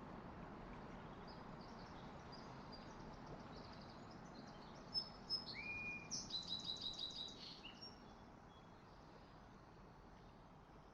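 A songbird singing over a faint, steady outdoor hiss. Scattered chirps build to one louder phrase about halfway through: two sharp notes, a rising whistle, then a quick run of repeated notes, while the hiss slowly fades.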